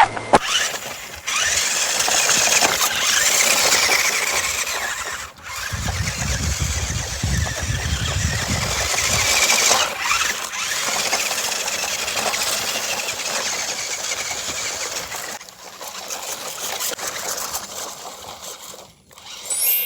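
Toy remote-control car's small electric motor and gears whining as it drives, cutting out briefly a few times and starting up again.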